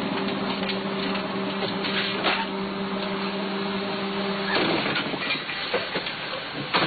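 A vehicle engine running with a steady hum that cuts off abruptly about four and a half seconds in, over a noisy background with a few short knocks.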